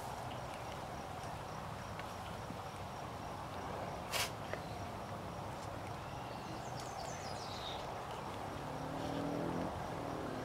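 Outdoor ambience: a steady hiss with one sharp click about four seconds in and a few short high chirps near the end.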